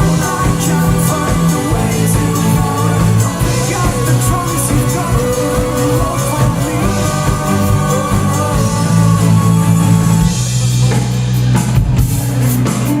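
Live rock band playing an instrumental passage: guitar over bass and drum kit. Near the end the drums thin out briefly.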